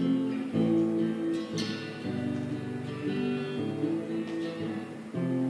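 Acoustic guitar played slowly, a few chords struck and left to ring, with no singing.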